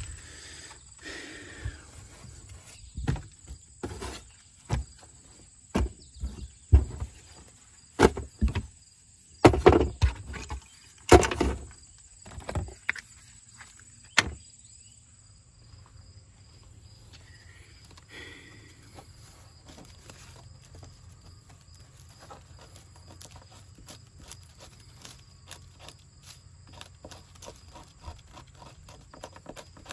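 Tools and gear being handled and lifted out of a car's cargo area: a run of knocks and clunks, loudest a few seconds before the middle. After that, only faint light ticking and rustling.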